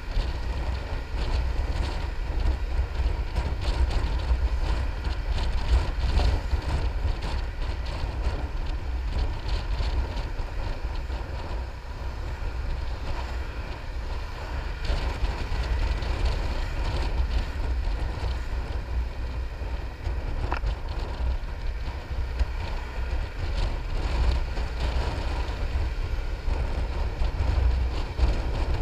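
Wind rumbling on the microphone while riding a Piaggio MP3 500 three-wheeled scooter at a steady speed. The scooter's running engine and road noise sit underneath.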